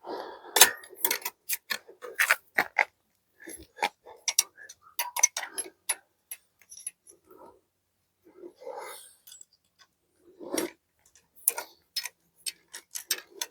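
Irregular metallic clicks and taps of a wrench, bolts and washers being handled while the fender bolts are taken out of an e-bike's frame.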